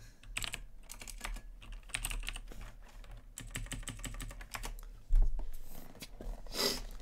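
Typing on a computer keyboard: a run of quick, irregular key clicks, with one heavy thump about five seconds in and a short hiss near the end.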